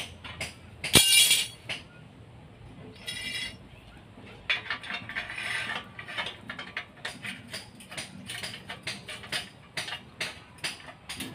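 Steel reinforcing bars being worked for a tie beam: a loud ringing metal clank about a second in, another ringing clink a couple of seconds later, then a long run of quick, irregular metallic clicks and rattles.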